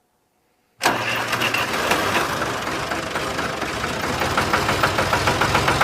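Tractor engine running with an even chugging beat, about six a second, starting suddenly a little under a second in.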